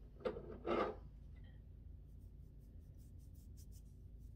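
A fingertip rubbing body glitter gel into the skin on the back of a hand: faint, quick scratchy strokes, about six a second, from about two seconds in, after two short louder rustles in the first second.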